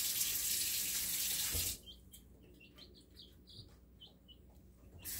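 Kitchen sink faucet running as a measuring cup is washed, then shut off abruptly about a second and a half in. After a quiet gap with a few faint high chirps, the water comes back on just before the end.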